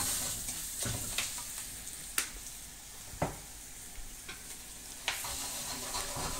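Arborio rice sizzling in butter and olive oil in a wok while it is stirred with a wooden spoon, a steady hiss broken by a few sharp knocks. This is the toasting stage of risotto, coating every grain with fat before any liquid goes in.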